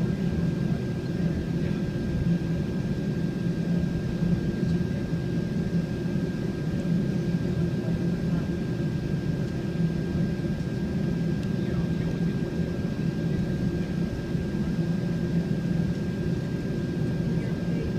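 Steady interior rumble of a Boeing 767-400ER taxiing with its jet engines at idle, with a thin steady whine above it.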